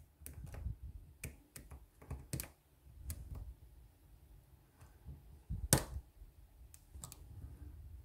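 Lock pick and tension wrench working the pins of a euro profile cylinder lock: scattered small clicks and ticks, with one louder click a little after halfway, over low handling rumble.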